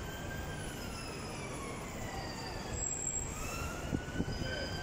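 Emergency vehicle siren wailing, its pitch slowly falling and then rising again, over the steady noise of street traffic.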